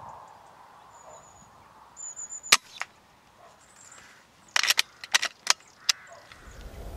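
A single sharp crack of an air rifle shot about two and a half seconds in, then a quick run of about six sharp clicks a couple of seconds later. A thin high bird call sounds a few times before the shot.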